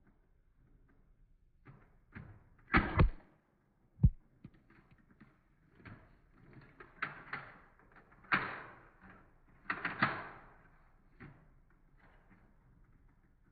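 X-Shot foam dart blaster being fired, a series of sharp clacks and thuds. A loud double clack comes about three seconds in and a single thud a second later, then more drawn-out hits around seven, eight and ten seconds in.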